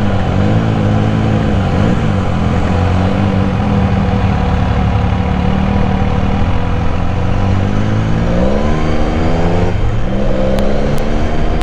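Benelli Café Racer 1130's inline three-cylinder engine, heard from the saddle while riding at low speed in traffic. It runs mostly steadily, then rises in pitch as the bike accelerates about eight seconds in, drops briefly, and rises again near the end.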